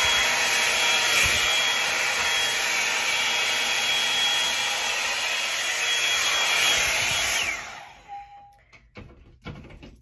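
Revlon One-Step hair dryer brush running: a steady rush of blown air with a high motor whine. About seven and a half seconds in it is switched off and the whine slides down as the motor spins to a stop, leaving a few soft handling knocks and rustles.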